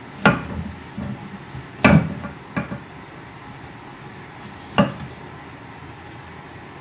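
Chef's knife slicing ginger on a thick round wooden chopping block: about five sharp knocks of the blade striking the wood at uneven intervals, the loudest about two seconds in, then only faint ticks.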